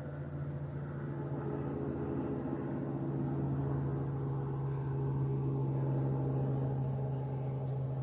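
Small bird giving short, high chirps, three of them spaced a couple of seconds apart. Under them runs a steady low droning hum that grows louder and is the loudest sound.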